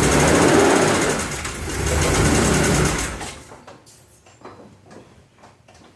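BMW E46 M3's S54 straight-six running with a misfire, caused by a broken rocker arm retaining clip. The engine stops about three seconds in, and a few faint clicks follow.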